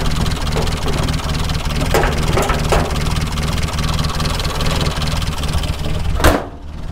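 Morris Minor's small A-series four-cylinder engine idling steadily while still warming up after its start, with a few light knocks about two to three seconds in. Near the end the bonnet is slammed shut with one loud bang, and the engine then sounds muffled.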